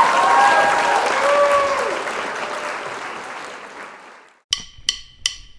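Crowd applause with a few whistles, fading out over about four seconds, then four evenly spaced clicks, a count-in just before a rock song starts.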